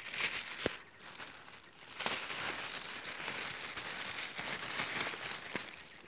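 Dry leaf litter and twigs rustling and crackling on the forest floor, in two stretches, with a sharp click under a second in.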